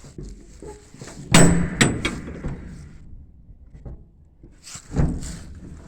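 Steel shipping-container door being worked shut: a loud metallic bang about a second and a half in, a second clank just after it, and another bang near the end.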